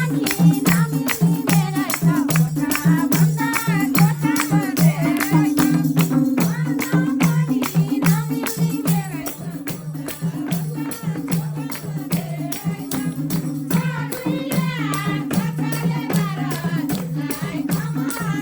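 Nepali dohori folk music: a fast, steady percussion beat with jingling strokes, held low notes underneath and a wavering melody on top.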